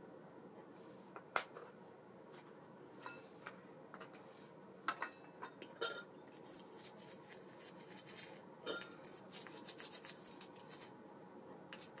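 Small metal parts and tools clinking and clicking irregularly as a baitcasting reel is worked on. There are a few scattered clicks at first, then a denser run of them in the second half.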